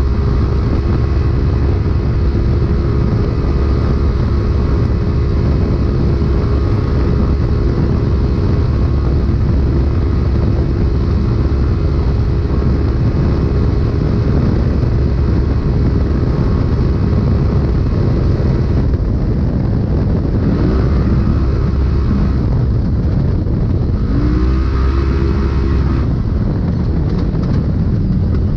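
Polaris RZR race UTV's engine running hard at a steady high pitch, heard from inside the car over wind and road noise. Three times in the last ten seconds the engine note dips and climbs back up.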